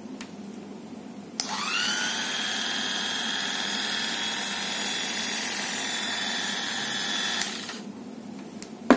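GTS-888 electric dog grooming clipper switched on with a click about a second and a half in. Its motor rises briefly in pitch as it spins up, then runs at a steady whine for about six seconds before being switched off and winding down. A sharp click comes right at the end.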